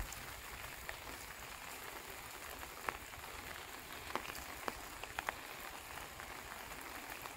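Light rain falling, an even faint hiss with a few single drops ticking now and then.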